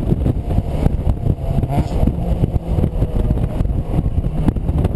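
Mazda MX-5's four-cylinder engine running under load at track speed with the roof down, the engine mixed with wind rushing over the open cockpit.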